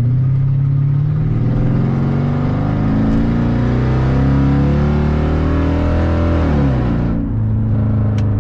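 Mercedes E55 AMG's 5.4-litre V8 pulling under hard acceleration, its pitch climbing steadily for about six seconds, then dropping quickly as the revs fall and settling at a lower steady note. It runs clean, with no misfire, on a replacement coil pack.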